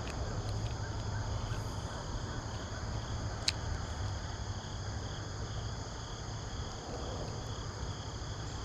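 Steady insect chorus: several high, unbroken tones layered together over a low rumble, with one sharp click about three and a half seconds in.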